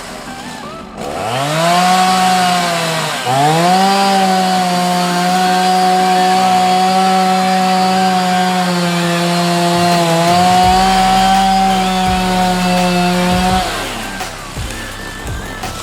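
Chainsaw throttling up to full speed about a second in. It dips briefly and recovers, then runs at a steady high pitch through the cut before winding down near the end.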